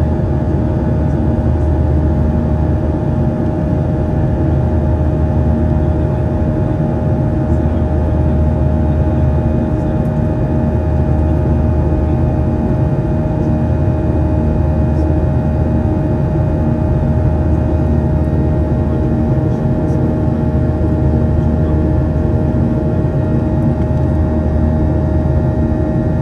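Steady cabin drone of a Boeing 737-800, the engines' and airflow's rumble with a high, held tone over it.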